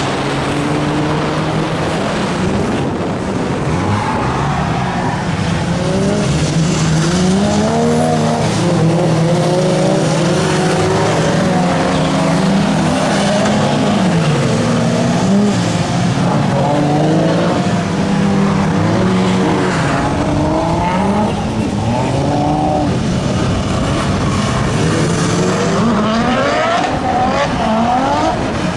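Car engines on a racing circuit revving, their pitch rising and falling over and over as they accelerate and lift off, with more than one engine heard at once over a steady hiss.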